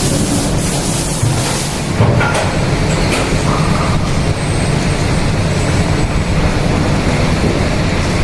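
Steady machine noise with a low rumble and a few faint clicks, as from shoe-making workshop machinery running.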